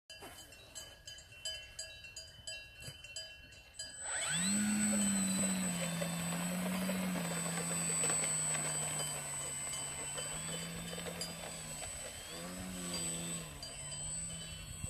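Electric motor and propeller of a Multiplex PC-6 Pilatus Porter RC model plane spool up sharply about four seconds in, then run as a steady drone with a high electronic whine as the plane rolls out across the grass. The pitch wavers with the throttle near the end. Before the motor starts, cowbells clank faintly.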